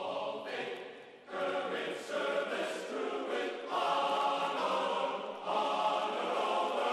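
Background music of held choral chords that change every second or so, with a brief dip in loudness about a second in.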